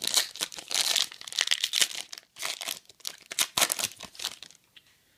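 Foil trading-card pack being torn open and its wrapper crinkled: a busy run of sharp crackles that stops shortly before the end.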